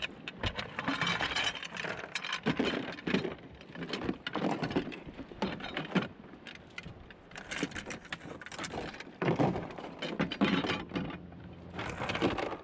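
Small dinghy being rowed: repeated oar strokes, splashing and knocking about once a second, with metallic clinking.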